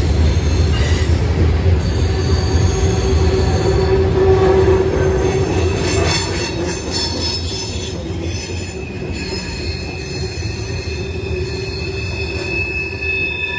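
Norfolk Southern train rolling past with its steel wheels squealing on the rails: several high steady squeal tones over a heavy low rumble, easing off a little about halfway through.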